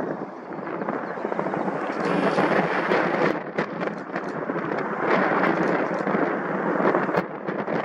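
Antonov An-225 Mriya's six D-18T turbofan engines on landing approach: a loud, continuous rumbling jet roar with a crackle running through it.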